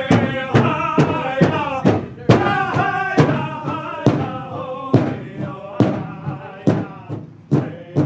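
Powwow drum struck in a steady beat, about two strikes a second, with singers chanting a song over it; the singing is strongest in the first half.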